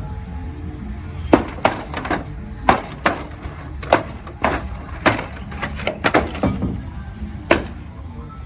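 Hammer blows on wood, about fifteen irregular strikes beginning about a second in, over a steady low hum.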